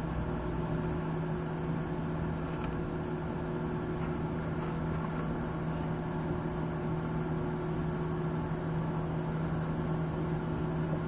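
Microwave oven running with a wooden pencil inside: a steady hum with a strong low tone.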